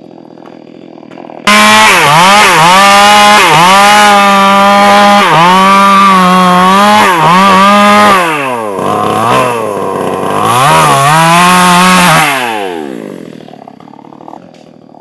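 STIHL chainsaw running at high revs and cutting wood, starting abruptly and loud, its pitch dipping again and again as the chain bites under load. About eight seconds in the revs sag lower, climb again, then fall away and fade near the end.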